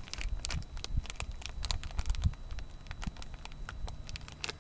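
Plastic packaging crinkling and crackling in irregular quick clicks as hands work open a small bag of jig heads.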